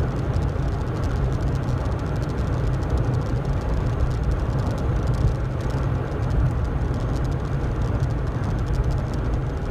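Ford Ka cruising at a steady speed, heard from inside the cabin: a constant low rumble of engine and tyres on the road, with road hiss over it.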